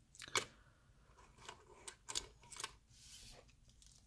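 Faint plastic clicks and knocks as the hinged parts of a Bakugan Battle Planet figure are handled and pressed while folding it into its ball form, several small clicks spread irregularly.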